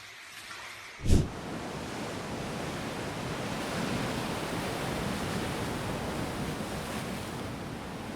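Ocean surf with wind buffeting the microphone: a brief thump about a second in, then a steady rush of breaking waves.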